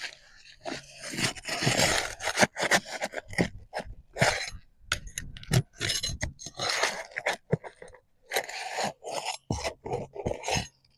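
Asphalt roof shingle being pried up and its nails worked loose: repeated irregular scraping and crunching with sharp clicks. The nails are pulling straight through the shingle, making them hard to get out.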